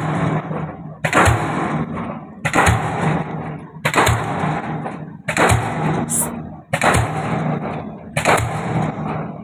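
DD-25 diesel pile hammer driving a concrete pile: a steady run of loud bangs, about one every second and a half, each with a short rumbling tail.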